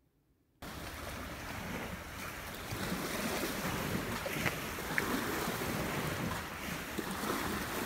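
Wind rushing over the microphone by open water, with small waves lapping against a concrete pier; it starts abruptly about half a second in after a moment of silence.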